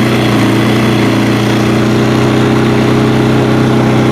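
Small piston engine of a Kit Fox light aircraft running steadily at an even speed, with a constant hum that neither rises nor falls.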